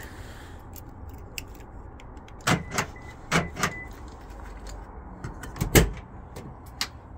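Hard folding tonneau cover on a pickup bed being unlatched and lifted: a handful of sharp clicks and knocks, the loudest about six seconds in, over a low steady rumble.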